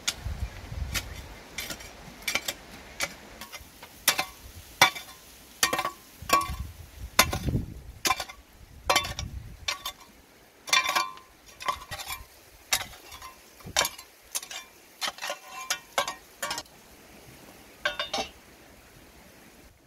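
A long-handled metal hoe chopping into dry, stony ground, its blade striking soil and pebbles with sharp clinks and scrapes, irregularly, about one or two strokes a second.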